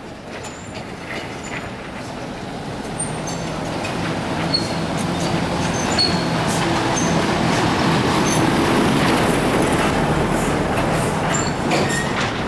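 A truck driving down a cobblestone street: its engine and the rumble and rattle of its tyres on the cobbles grow steadily louder as it approaches. The sound peaks about eight to ten seconds in as it passes close, then eases a little.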